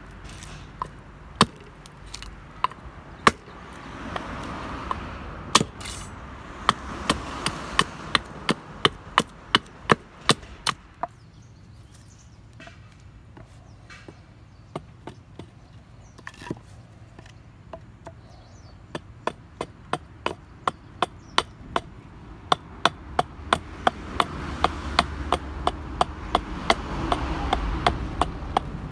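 Hatchet chopping a stick of wood to shape, a quick run of sharp chops about two to three a second, with a lighter, sparser spell in the middle.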